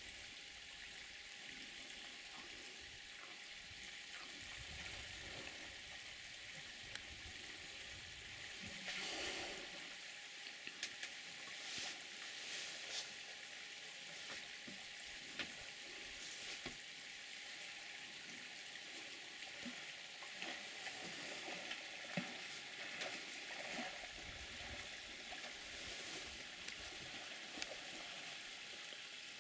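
African bush elephants drinking at a waterhole: quiet splashing and trickling as their trunks stir and draw up water, over a steady hiss, with a few louder splashes.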